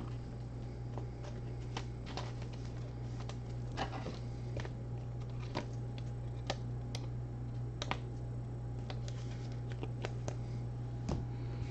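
Sparse light clicks and taps at uneven intervals over a steady low hum.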